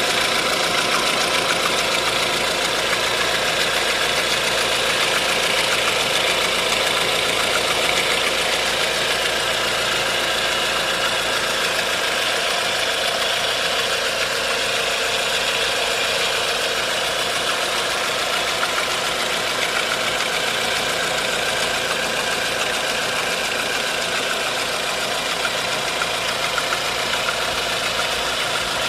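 1.4-litre 16-valve engine running steadily with a persistent mechanical noise that is still there after the tensioner and timing chain were checked and the accessory belt was removed, so the belt and its tensioner are ruled out as the source.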